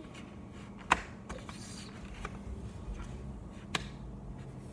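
Plastic markers clicking and tapping as they are handled and set down, with a sharp click about a second in and another near the end.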